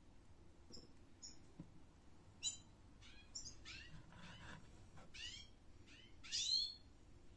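A small bird chirping: a series of short, high calls that sweep downward in pitch, one sharp call about two and a half seconds in and the loudest, longest one near the end.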